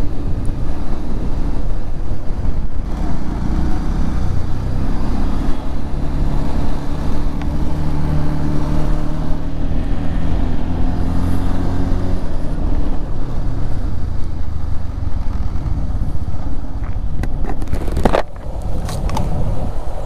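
Bajaj Pulsar 150 motorcycle engine running on the move, under heavy wind rumble on the microphone. The engine's steady note stands out most in the middle, and there is a single sharp knock about two seconds before the end.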